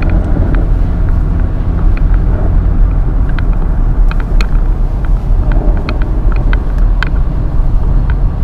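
Steady low rumble of a car driving, heard from inside the cabin. Irregular sharp ticks of rain strike the car's windshield and body.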